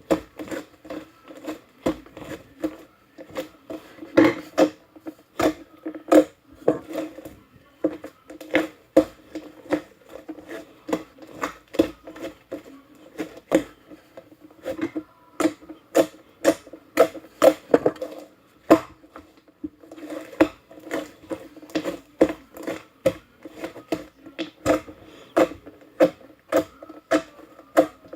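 Irregular quick taps and clicks, a few a second, each with a short ringing tone.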